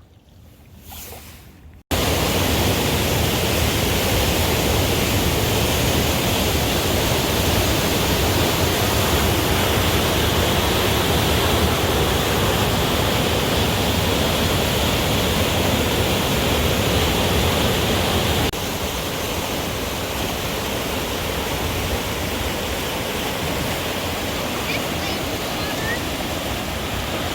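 Loud, steady rush of flood-swollen water. It starts abruptly about two seconds in and drops a little in level near the two-thirds mark.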